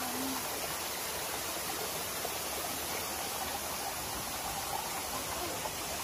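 Steady rushing water, an even noise that holds the same level throughout.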